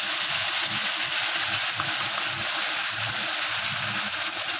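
Freshly ground wet masala paste sizzling and bubbling in hot oil in a kadai, a steady frying hiss.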